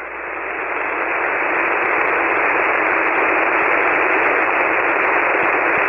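Ham radio receiver hiss: steady static on 40-metre single sideband, a narrow band of hiss with no deep lows or bright highs. It swells over the first couple of seconds, then holds steady: an open frequency with no station transmitting.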